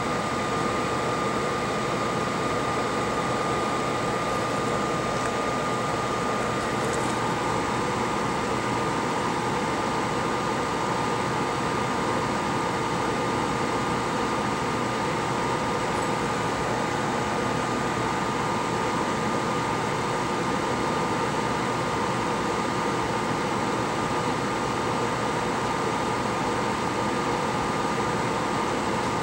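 Steady fan-like hiss with a constant high whine running under the work, from a fan on the repair bench.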